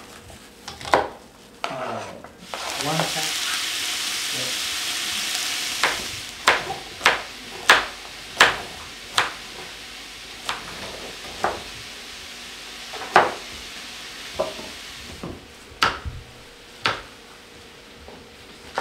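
A steady hiss for about three seconds, then a series of sharp scraping strokes, a couple a second at first and then spaced out: a vegetable peeler stripping a carrot against a plastic cutting board.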